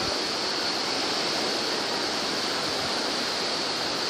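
Steady outdoor beach ambience: an even rushing noise with a constant high-pitched hiss over it.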